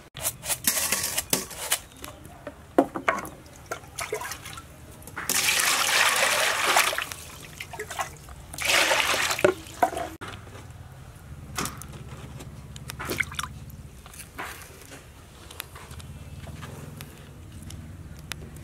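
Water splashing into a stainless steel bowl in two loud bursts, the first about five seconds in and lasting a couple of seconds, the second shorter. Around them come small clicks and rustles of ripe bananas being broken off the bunch and peeled by hand.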